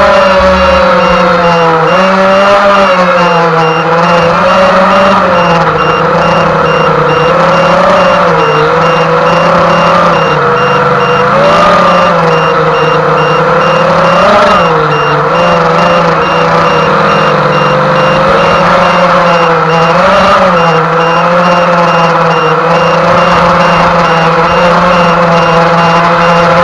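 Model boat motor running hard at a steady high pitch, dipping and rising slightly every few seconds with the throttle.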